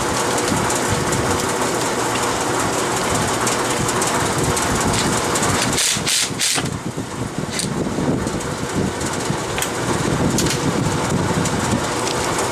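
Large drum fan running with a steady rushing noise, with a few light clicks and knocks.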